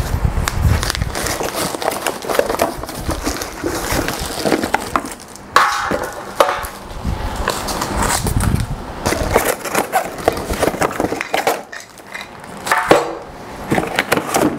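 Unboxing a new angle grinder: cardboard box and plastic packaging rustling, with irregular knocks and clatter as parts are pulled out and set down on a steel work stand.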